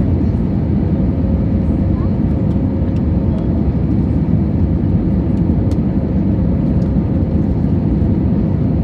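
Steady low rumble of a Boeing 737's jet engines, with a faint steady hum above it.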